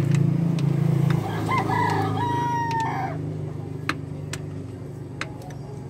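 A rooster crows once, about a second and a half in, one long call over a steady low hum. Several sharp metallic clicks from a socket wrench being worked under the engine come before and after it.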